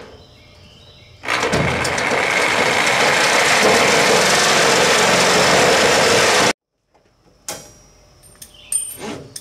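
Handheld corded electric saw cutting a .100-inch aluminum sheet. It gives a loud, steady cutting noise that starts about a second in and stops suddenly some five seconds later. A few light clicks and taps follow near the end.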